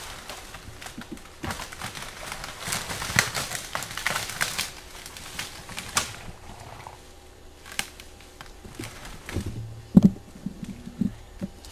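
Footsteps crunching and rustling through dry autumn leaves and brush, with twigs snapping, thickest in the first half and easing off after about six seconds. A single loud thump about ten seconds in.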